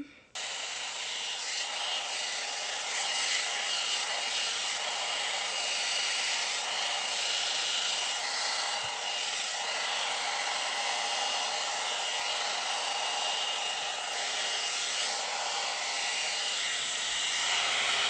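Amika hot-air blow dryer brush running steadily as it is drawn through a section of type 4 natural hair, a rush of air with a thin high whine over it. It comes on just after the start.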